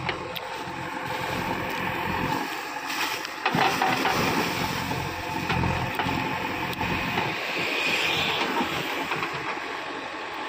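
JCB backhoe loader's diesel engine running under load as its backhoe arm digs in a trench, getting louder about three and a half seconds in.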